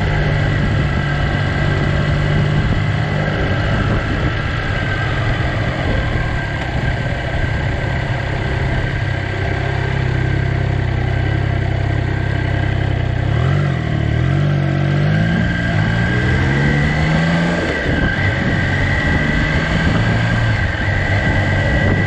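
Triumph Trident's three-cylinder engine running steadily under way on the road. About two-thirds of the way in the engine note rises in pitch several times as the bike accelerates.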